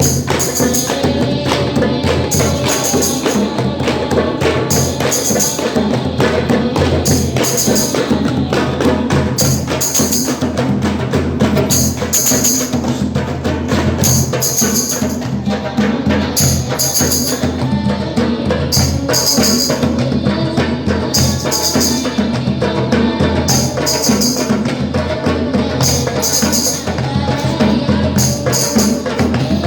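Percussion music played in a steady rhythm, with tambourine-like jingles and drum strokes repeating throughout.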